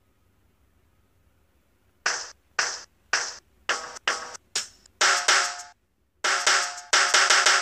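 Drum-pad app on a phone playing sampled drum hits as its pads are tapped. It is silent at first; about two seconds in, single sharp hits start, spaced about half a second apart, then come faster, with longer ringing hits near the end.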